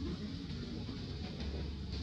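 Steady low rumble of outdoor background noise, with no clear monkey calls.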